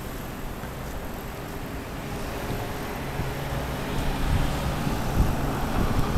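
Street traffic: a motor vehicle's engine hum grows louder over the last few seconds as it comes closer, with gusts of wind rumbling on the microphone near the end.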